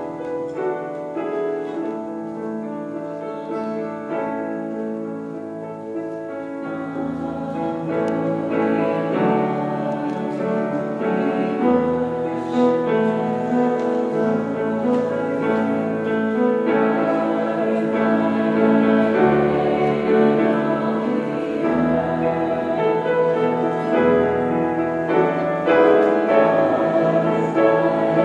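Piano playing slow, classical-style music that grows louder after about six seconds.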